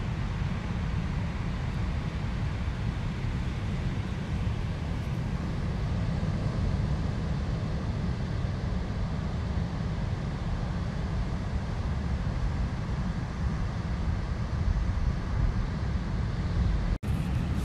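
Wind buffeting the microphone outdoors: a steady low, uneven rumble with a faint hiss above it, cutting out for an instant near the end.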